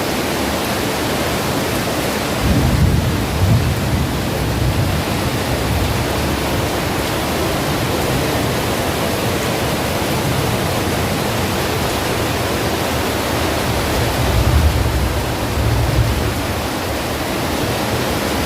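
Heavy wind and rain of a thunderstorm, a steady rushing, with spells of deep rumbling about three seconds in and again near the end.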